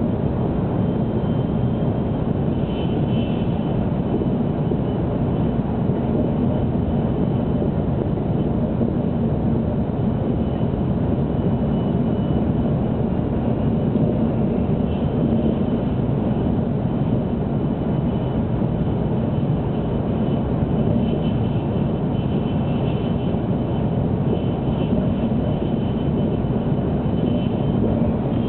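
Cabin noise inside a 700 Series Shinkansen running at speed: a steady rumble of the running gear and air rushing past the car, with a faint thin high tone coming and going.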